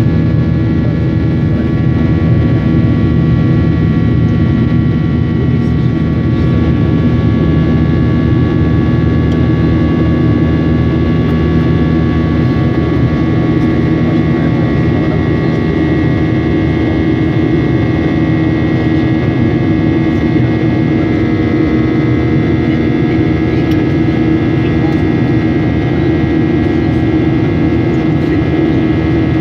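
Steady cabin noise of a Boeing 737 jet airliner in flight, heard from inside the cabin: a loud, even drone of the jet engines and airflow with several steady whining tones over it.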